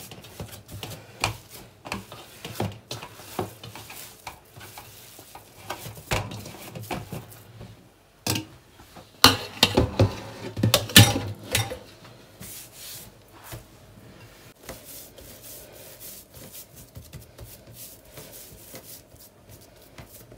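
Hands pressing and gathering semolina dough in a stainless steel bowl, rubbing and scraping against the metal, with a cluster of louder knocks and clatter about nine to eleven seconds in. After that, quieter rubbing as the dough is rolled on the countertop.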